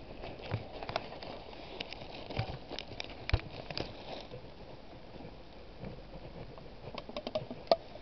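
Irregular clicks and rustles close to the microphone, the sharpest about three seconds in and near the end, as the camera is moved and handled, over a faint steady outdoor background.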